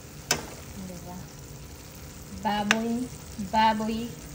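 Pork and string beans sizzling steadily in a pan, with a sharp knock near the start.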